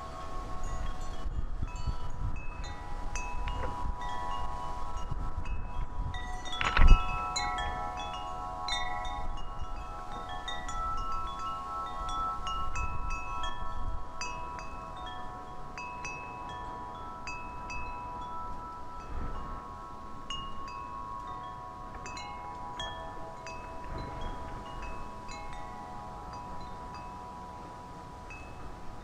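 Wind chimes ringing in the breeze: several long, overlapping tones with many short, higher tings, over wind rumbling on the microphone. About seven seconds in there is a single sharp knock, the loudest sound.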